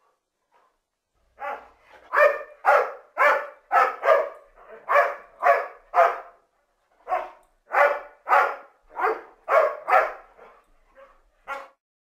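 Doberman Pinscher barking repeatedly: a quick run of about ten barks, a short pause, then another run of barks ending with a few quieter ones.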